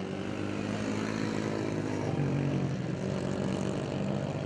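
Several small racing engines buzzing on the circuit at once, one rising in pitch about two seconds in.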